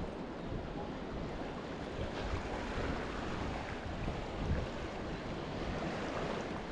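Wind buffeting the microphone over the wash of small sea waves lapping against the rocks at the foot of a harbour wall: a steady, gusty rush of noise.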